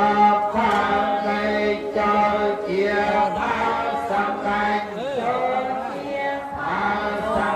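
Many Buddhist monks chanting Pali together in unison, a steady recitation held on one low pitch with short breaks between phrases.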